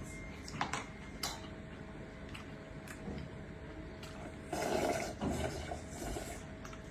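Quiet eating and drinking sounds at a table: scattered small clicks and knocks, with a short louder noisy stretch about four and a half seconds in.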